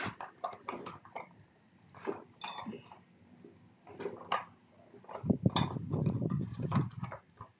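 Plastic and metal parts of a child's bike clicking and knocking as its front wheel and axle are handled and fitted by hand, with a denser stretch of rattling and rubbing about five seconds in.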